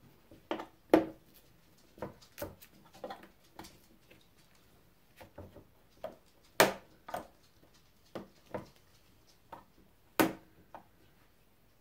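Irregular clicks and knocks of the staples on the back of a wooden picture frame being pressed back down over its cardboard backing with a small tool, the sharpest about a second in, just past halfway and near the end.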